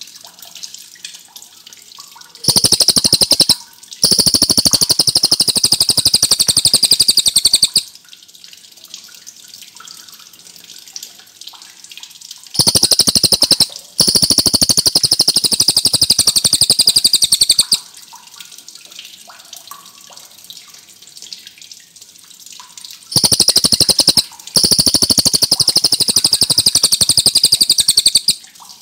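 Cililin songbird singing three long, rapid, high trills, each about five seconds long with a brief break a second into it. A faint sound of running water fills the pauses between them.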